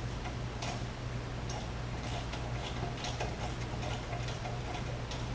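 Light, irregular metallic clicking, about two to three clicks a second, as new nuts are run up snug on an aircraft engine's connecting-rod bolts, over a steady low hum.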